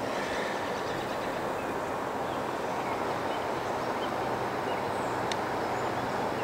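Steady rushing of river water flowing over a low dam, an even roar that does not change. A few faint high chirps sound over it.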